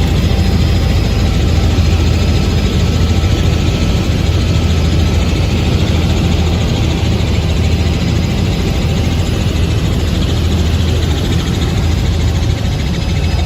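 Helicopter in flight: a steady, loud drone of rotor and engine noise.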